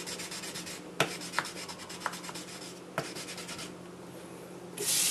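Wooden block scrubbed rapidly back and forth with wet emery powder over a steel kitchen knife blade, a fast gritty rasping in runs, each opening with a sharp knock, abrading off rust and scratches to restore the whetstone-mark finish. The rubbing stops after about three and a half seconds, and near the end a water tap starts running.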